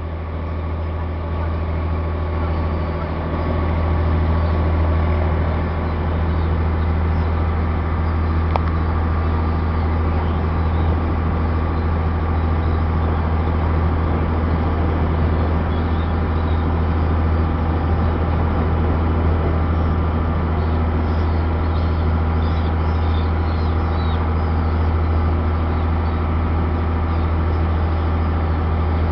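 Boat engine running steadily with a deep, even drone, and faint bird chirps over it in the second half.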